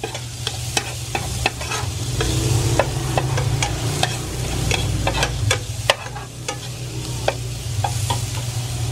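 Minced garlic and onion sizzling in melted margarine in an enamel pot, with a spatula scraping and clicking against the pot in quick, uneven stirring strokes.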